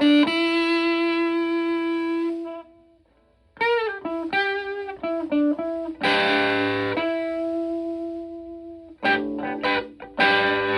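Les Paul electric guitar played through a modified Vox Tone Bender fuzz pedal into a Fender Twin clone amp. A single fuzzed note is held for about two seconds and fades out, followed by a short pause. Then come picked notes and bends, a fuzzy chord that rings for about three seconds, and more notes near the end.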